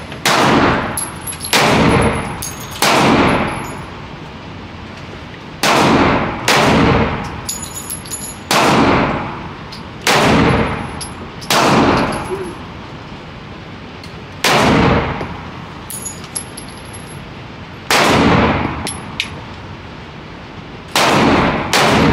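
Gunshots at a shooting range: about a dozen single shots fired one to four seconds apart, each followed by a short echoing tail.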